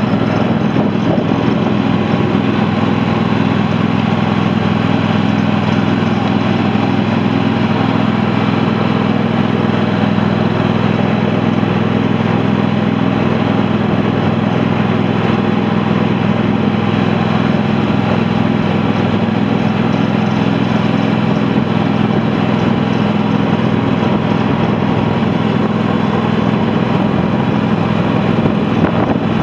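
V-twin Kohler engine of a John Deere-built Sabre lawn tractor running steadily and evenly, a smooth runner.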